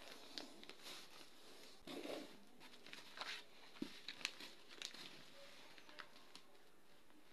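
A sheet of lined notebook paper being handled and folded: faint rustling and crinkling with a few sharp little ticks as creases are pressed. The loudest rustle comes about two seconds in.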